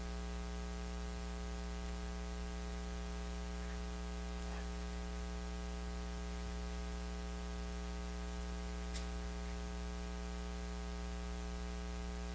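Steady electrical mains hum with a constant hiss underneath it, and a faint click about nine seconds in.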